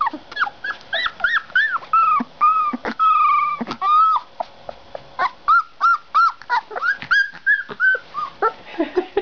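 Young puppies whimpering: a quick string of short, high, squeaky whines, two or three a second, with one longer wavering whine about three seconds in.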